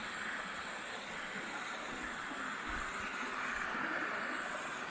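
Small waterfall spilling over rocks into a pool: a steady rush of falling water, swelling slightly about three and a half seconds in.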